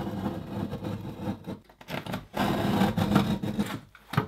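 Utility knife scoring through a Wedi foam building panel, two long scratchy cutting strokes with a short pause between them, followed by a sharp click near the end.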